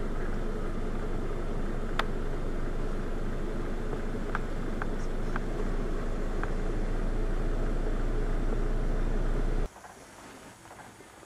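A steady low rumble with a constant hum underneath and a few sharp clicks, cutting off abruptly near the end to a much quieter background.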